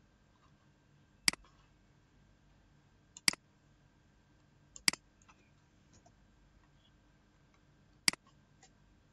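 Computer mouse button clicked four times, a second or more apart, each a sharp press-and-release double click, over a faint steady hum.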